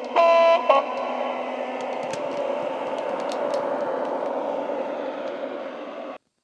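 Bachmann MLV model's Hornby HM7000 sound decoder through its small speaker: a two-tone horn sounds briefly, with a short second toot, then the electric unit's drive sound runs steadily with scattered clicks as the model passes. It cuts off suddenly near the end.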